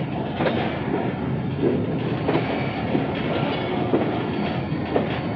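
Passenger train rolling slowly along a station platform. There is a steady rumble and rattle of the carriage, and a few scattered knocks of the wheels over rail joints.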